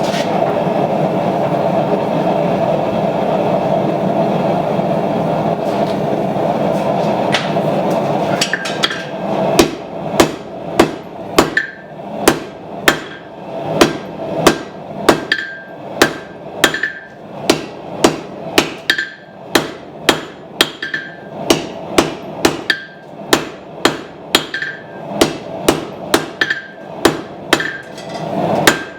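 Steady rushing noise of the forge for about the first eight seconds, then hand-hammer blows on hot steel on the anvil, about two a second, many with a brief ringing anvil tone, as the blade is drawn out.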